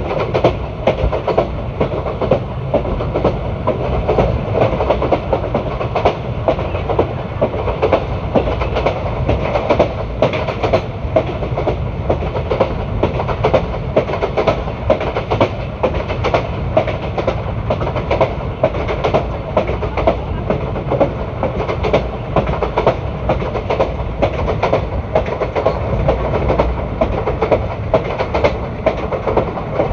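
Indian Railways ICF passenger coach running at speed: a steady rumble of wheels on rail with a rapid, irregular clatter of knocks from the wheels and bogies.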